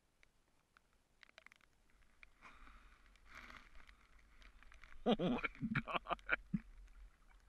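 Light rain ticking on the camera and the river in scattered drops, with a short, broken burst of a person's voice about five seconds in.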